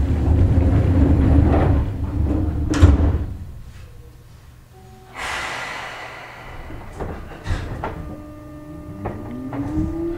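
Inside a Seibu New 2000 series electric train car at a station stop: the sliding doors knock shut in the first three seconds, a hiss of air follows about five seconds in, and near the end the train starts off, its traction motors' whine rising steadily in pitch over the steady high tone of the field-chopper control.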